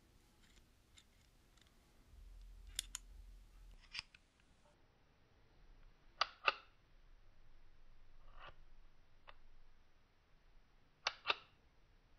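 The metal mechanism of a hand-held ballpoint pen being worked, giving sharp clicks, mostly in quick pairs, every few seconds.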